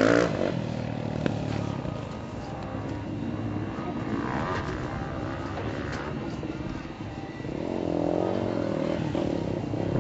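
Dirt bike engine running and revving as the bike rides past, the pitch rising and falling with the throttle; the revs swell again near the end.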